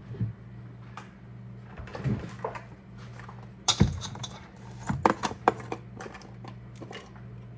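Kitchen handling sounds: scattered clinks and knocks of a jar and containers against a stainless steel mixing bowl and the counter, the loudest knock about four seconds in and a quick run of clicks a second later. A steady low hum runs underneath.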